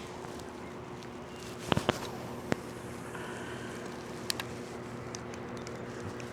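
Steady motor hum with a few sharp knocks and clicks: a cluster about two seconds in, another shortly after, and two more a little past the middle.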